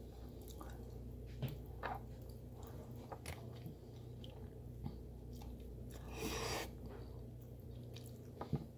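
Close-up chewing of boiled seafood, with wet mouth clicks and smacks scattered through, and a longer breathy noise about six seconds in.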